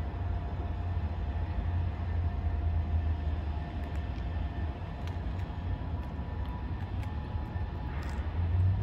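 Diesel locomotives at the head of an approaching Norfolk Southern freight train, still far off: a steady low rumble.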